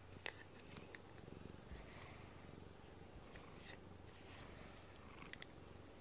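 Domestic cat purring quietly while its face is brushed with a rubber grooming brush, with faint scratchy brush strokes on the fur. There are a few short clicks, the sharpest about a quarter second in.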